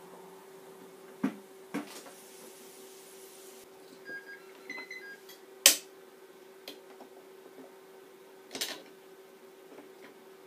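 Sharp plastic clicks and knocks of a Tefal ActiFry 2in1 air fryer's lid being opened and its pan handled, a few separate clicks with the loudest a little past halfway, over a faint steady hum.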